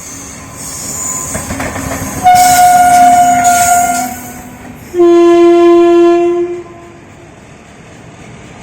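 Indian Railways locomotive horn sounding two blasts: a higher-pitched blast of about two seconds, then after a short gap a lower-pitched blast of about a second and a half. Under both is the rumble and clatter of the running train.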